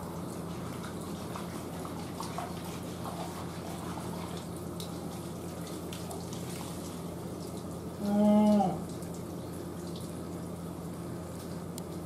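A just-fledged Humboldt penguin chick gives one short, loud call partway through, a young voice not yet the deep, thick call of an adult. Steady running water from the enclosure washes underneath.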